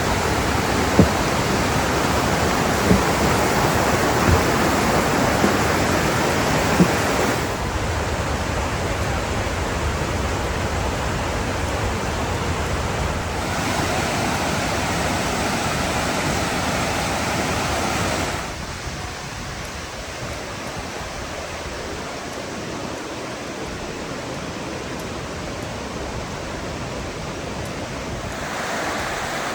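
Steady rush of creek water and waterfalls, its level stepping up or down suddenly a few times. A few faint knocks in the first several seconds.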